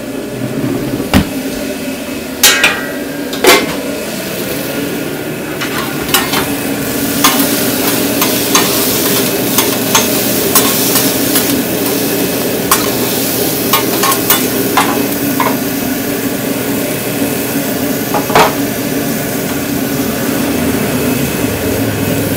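Chicken frying and sizzling for an order, with frequent sharp clicks and knocks of a metal utensil stirring and turning it in the pan or on the griddle; the sizzle grows fuller after a few seconds.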